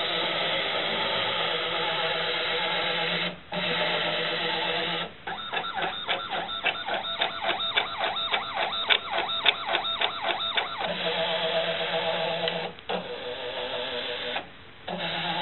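Stepper motors of a homemade paint-mixing and dispensing machine running with a steady whine of several tones. It stops briefly a few times. For about five seconds in the middle it steps in quick, even pulses, about four a second.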